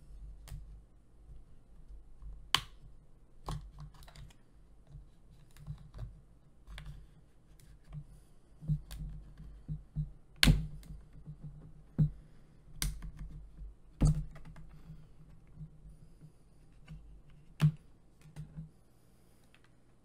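Plastic case of an original Nvidia Shield TV Pro being pried open with a thin pry tool worked along its seam. Irregular sharp clicks and cracks, as from plastic clips snapping free, with scraping and handling knocks between them.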